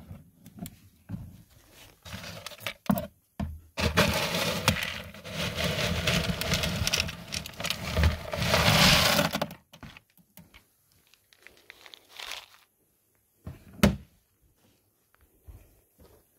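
Whole dried corn kernels scooped out of a plastic cooler with a plastic scoop: a dense, loud rattle of kernels for several seconds, ending about ten seconds in. Later, one sharp knock and a few light footsteps on a wooden deck.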